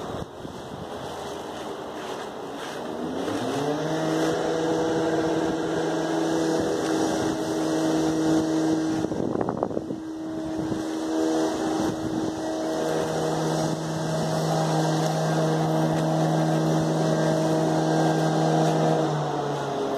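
A motor speeds up about three seconds in, then runs at a steady high speed with an even, pitched drone, stopping near the end.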